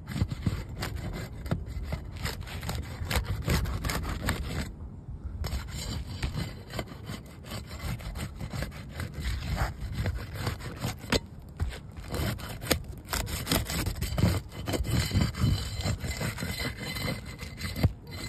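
A metal pry bar scraping and rasping under asphalt roof shingles as they are pried loose and lifted for a repair, with irregular clicks and knocks from the bar and the stiff shingles. There is a short pause about five seconds in.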